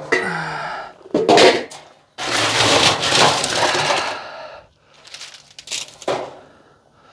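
Galvanized metal trash can being opened and rummaged: metal clanking near the start, then a long scraping, rustling stretch as the dried treats are grabbed, and a few lighter knocks near the end.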